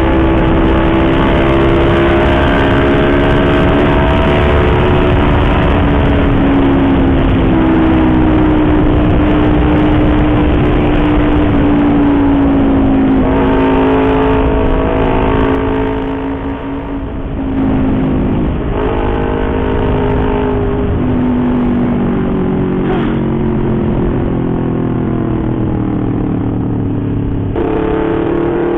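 Yamaha YZF-R25 parallel-twin engine through an Akrapovič exhaust, heard on board while riding at speed with wind rush. The exhaust note slowly falls in pitch, dips briefly about halfway as the throttle eases, then picks up and climbs again, with a sudden jump in pitch near the end.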